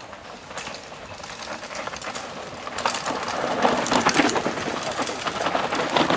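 Mountain bikes coming down a dirt trail: tyres rolling over soil and leaves with a rapid clicking and rattling. The sound grows louder from about two seconds in as the lead rider approaches.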